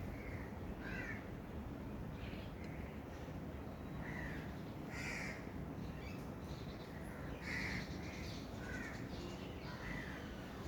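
Birds calling outdoors: about ten short, separate calls come at irregular intervals, roughly one a second, over a steady background hiss.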